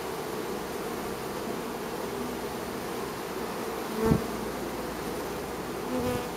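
A crowd of honey bees buzzing steadily at a hive entrance. Single bees fly close by with a louder passing buzz about four seconds in and again near the end.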